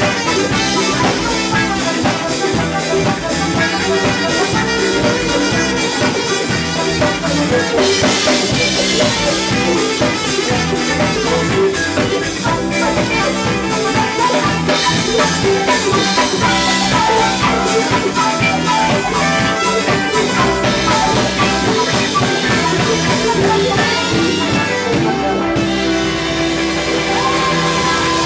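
Live band playing with a drum kit and horns, a dense full-band sound with steady drum hits; near the end a long held note sounds.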